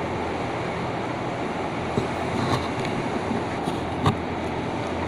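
Steady mechanical hum and hiss of background machinery, with a few sharp metallic clicks, about two seconds in and again near four seconds, as metal parts or tools are handled.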